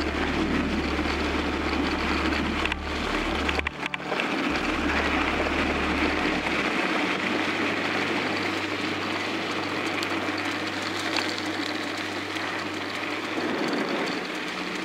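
Wind rushing over the microphone and mountain-bike tyres rolling on a dirt forest road during a fast descent, a steady rushing noise with a deep rumble. It dips briefly about four seconds in.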